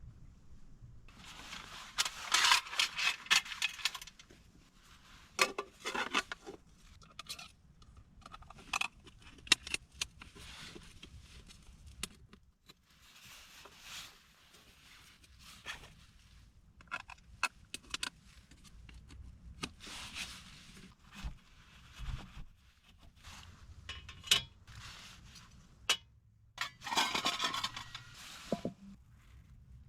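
Small metal items clinking and scraping as they are handled, in irregular bursts with sharp clicks; the loudest bursts come near the start and near the end.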